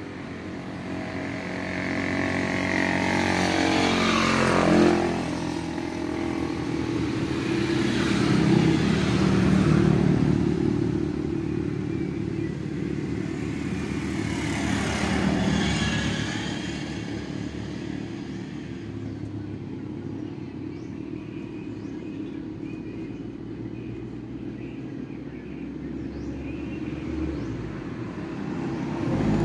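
Motor vehicles passing by, one after another, each engine growing louder and then fading as its pitch drops. Three such passes stand out, the first about five seconds in; between them a quieter engine hum carries on.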